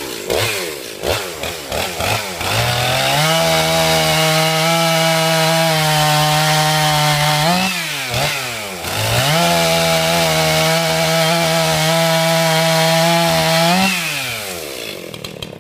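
Husqvarna 262 XP two-stroke chainsaw, fitted with a new Meteor piston, cutting through a log. It is blipped a few times, then held at full throttle for two cuts of about five seconds each, with the revs dipping and blipping between them. The revs fall back toward idle near the end.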